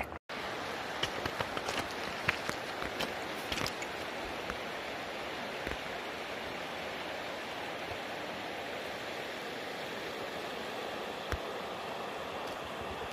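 A river running: a steady rush of flowing water, with a few light clicks in the first few seconds.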